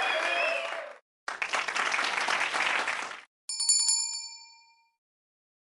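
Outro sound effects: two short bursts of crowd cheering and applause, then a single bell ding about three and a half seconds in that rings for about a second and fades out.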